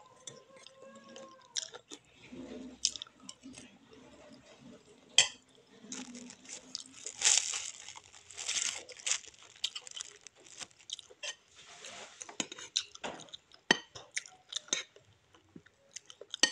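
A person chewing and crunching a fried cracker (krupuk) with a meal of rice cake in vegetable broth: irregular crackly crunches and mouth sounds, loudest about halfway through.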